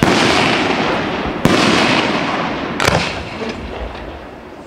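Aerial firework shells bursting overhead: three sharp bangs about a second and a half apart, each followed by a long echo that dies away.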